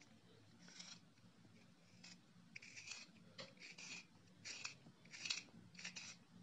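A coloured pencil being turned in a small handheld plastic pencil sharpener: faint, repeated scraping strokes as the blade shaves the wood and lead, about one to two a second, getting louder toward the end.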